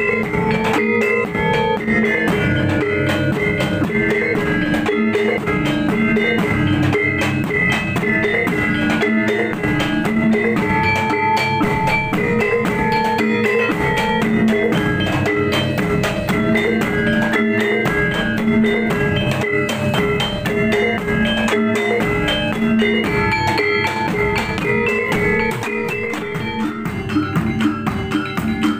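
Javanese reyog gamelan ensemble playing: a large barrel drum and kendang hand drums keep a dense driving beat while bronze keyed metallophones ring out repeated melodic notes. Near the end the ringing notes drop back and the drum strokes stand out more sharply.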